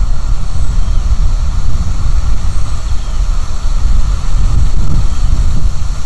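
Wind buffeting the nest camera's microphone: a loud, steady low rumble that rises and falls slightly, with faint high bird chirps every couple of seconds.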